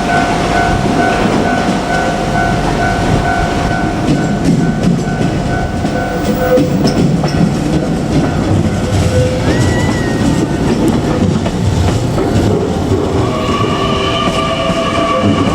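JR Kyushu 817 series electric train running past a level crossing, wheels clattering over the rails, while the crossing's warning bell rings in a rapid pulsing two-tone pattern that stops about six seconds in. Near the end a rising electric motor whine joins as the train picks up speed.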